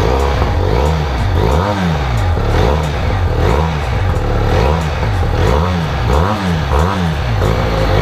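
Benelli TRK 502's 500 cc parallel-twin engine with a 360-degree crankshaft, heard close to the exhaust, revved in short blips about once a second over its idle.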